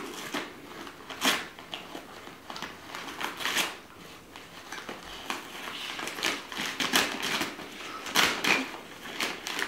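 Wrapping paper crinkling and tearing as an Irish Soft Coated Wheaten Terrier rips at a present with its teeth: irregular crackling with several louder rips.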